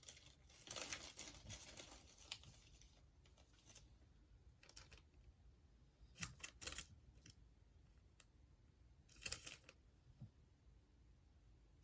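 Trading cards being handled by hand, quiet: a soft rustle at first, then a few brief scrapes and flicks as cards are slid and flipped over.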